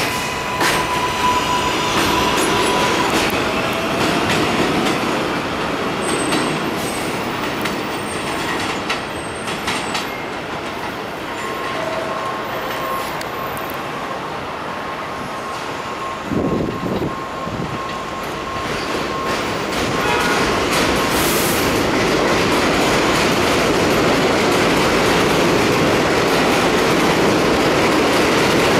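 New York City Subway R188 train on the 7 line pulling out of an elevated station, its wheels clacking over the rail joints and a steady high whine coming and going as it moves off. Over the last several seconds a louder, steady rumble of train noise builds.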